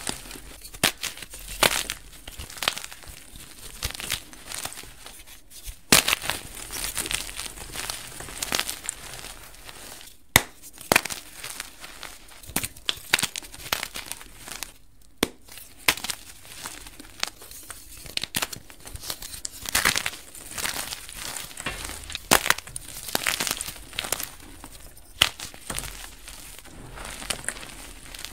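Soft blocks of dyed gym chalk crushed and crumbled between fingers: irregular dry crunching and crackling, with a few sharper snaps, and softer rustling as hands work through the loose chalk powder.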